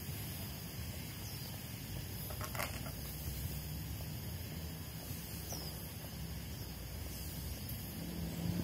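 Steady outdoor ambience: a constant high insect drone over a low rumble, with a few short falling bird chirps.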